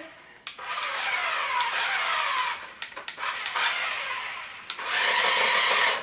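Toy remote-control flip car's small electric motors whining as it drives and spins on a laminate floor, sliding in pitch as it speeds up and slows. It comes in two spells: the first starts about half a second in and drops away near three seconds, and the second starts near five seconds.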